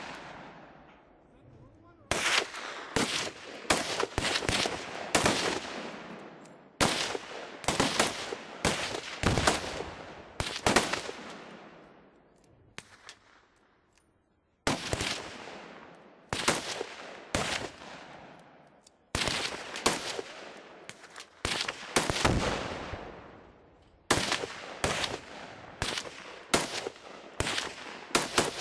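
Gunfire from firearms on a shooting range: sharp shots fired singly and in quick runs, each trailing off in a long echo, with short pauses between the groups and a fast run of shots near the end.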